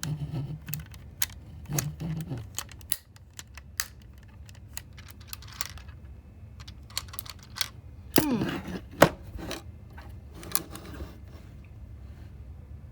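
Plastic Lego bricks clicking, rattling and knocking at irregular intervals as the puzzle box is handled and a stuck piece is probed for, with a louder clattering stretch about eight seconds in.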